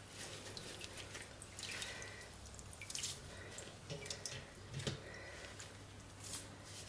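Lye salt water dripping and splashing faintly back into the pot from chunks of salted-out curd soap as they are lifted out to drain, with a few soft taps.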